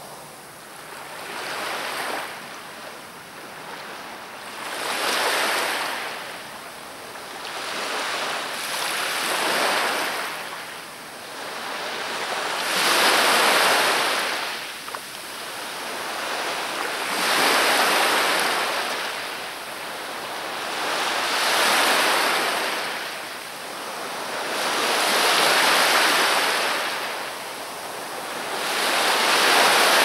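Black Sea surf: waves breaking and washing up the shore, one swell of surf noise about every four seconds, each rising and then fading away.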